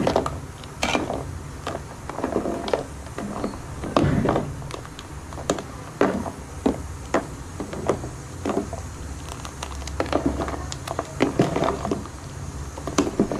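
Steel spoon stirring a thin curry mixture in an aluminium pot, with irregular scrapes and clinks of metal against the pot.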